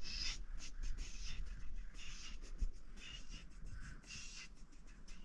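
Soft, irregular rustling and scuffing of clothing and blanket fabric as the baby's arms are moved about.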